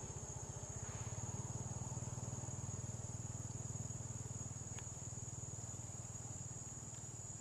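Steady high-pitched insect buzz, with a low pulsing hum like a motor beneath it and a few faint clicks.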